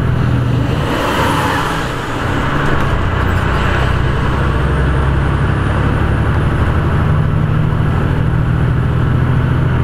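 Truck's diesel engine running at a steady cruise, heard from inside the cab, with road and tyre noise on wet pavement that swells briefly about a second in.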